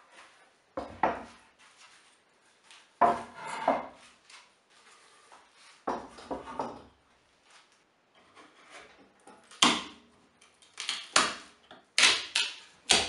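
Thick wooden boards set down and stacked on a wooden workbench: a series of hollow wood-on-wood knocks and short scrapes, a few seconds apart, the loudest near the end.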